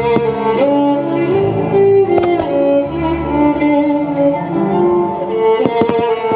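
Classical string music, mostly violins and cellos holding long notes, played over the venue's loudspeakers. A few sharp bangs cut through it about two seconds in and again near the end, most likely fireworks bursting.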